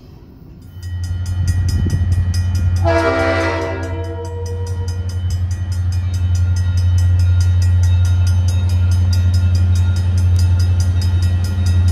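Grade-crossing warning bell ringing steadily, about four or five strikes a second, as a diesel freight train approaches under a steady low rumble. The locomotive sounds its multi-tone air horn, one short blast about three seconds in and another starting at the very end.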